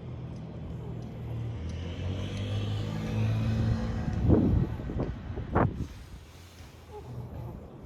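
A motor vehicle passing, its engine hum swelling and then fading, with two short knocks about four and five and a half seconds in.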